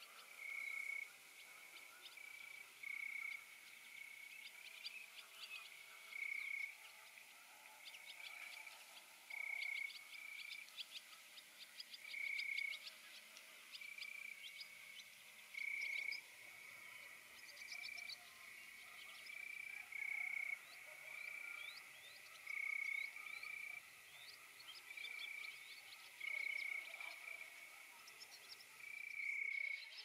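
Frogs calling: short notes, each held at one pitch, repeating roughly once a second, over fainter quick high chirps.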